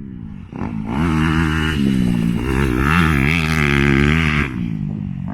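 Dirt bike engine running, its pitch rising and falling as the throttle is worked, louder from about a second in and easing off near the end.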